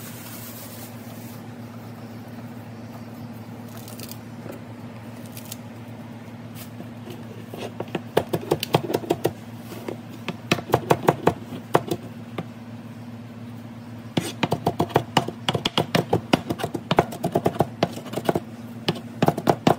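Large knife chopping fresh cilantro on a cutting board: rapid knocks of the blade on the board in bursts, starting about eight seconds in, over a steady low hum.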